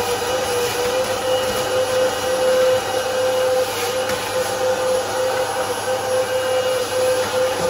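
Steady whirring hum of a motor-driven machine, with one clear mid-pitched tone held throughout.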